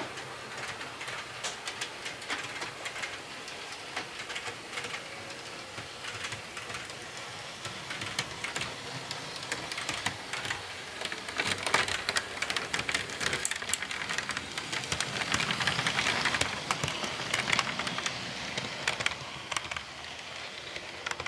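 Model freight train rolling on sectional track: a dense patter of wheel clicks over the rail joints. It grows louder from about halfway through as the cars pass close by, then eases near the end.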